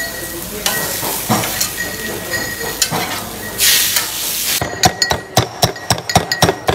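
Hilsa fish frying in oil on a large flat griddle: a steady sizzle with spatula scrapes and clicks, swelling louder about three and a half seconds in. After about four and a half seconds it gives way to a pestle pounding in a stone mortar, sharp rhythmic strikes several times a second.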